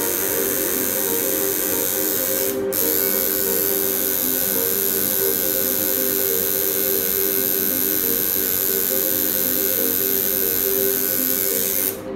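Electric tattoo machine buzzing steadily at one pitch while it works on the skin, with a very short break about two and a half seconds in and stopping near the end.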